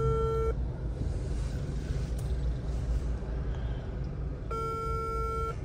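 Outgoing phone call ringing on speakerphone: a ringback tone of about one second, sounding once near the start and again about five seconds later, near the end, while the call waits to be answered. A steady low rumble of the car's running engine lies underneath.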